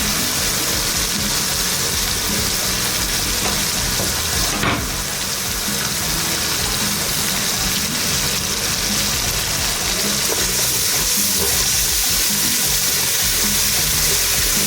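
Sofrito of onion, garlic and ají pastes sizzling steadily in hot oil in a cooking pot, with one brief knock about four and a half seconds in.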